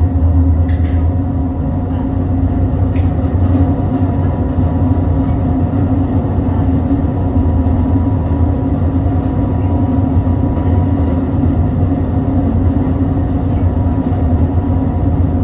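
Car ferry's diesel engines and machinery running with a steady low drone as the ship moves slowly away from the pier.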